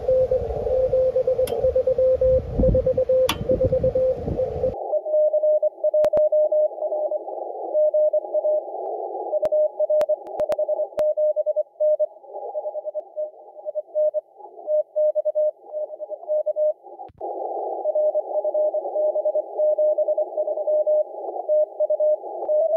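Morse code (CW) tone keyed in dots and dashes from a ham radio receiver, first over band hiss. About five seconds in it switches to a slightly higher, clean tone heard through a narrow filter with no hiss.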